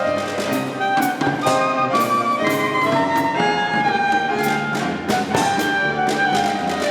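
Klezmer ensemble playing an up-tempo tune: sustained violin and clarinet melody lines over piano, bass and regular percussion strikes.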